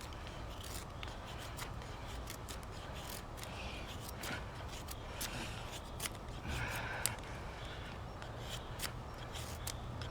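Knife blade shaving thin curls off a piece of pine wood: a string of short, irregular scraping strokes.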